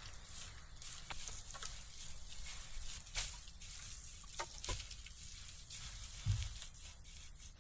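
Food frying in a pan over a small stove: a faint steady sizzle with scattered pops and crackles, and a soft low knock about six seconds in.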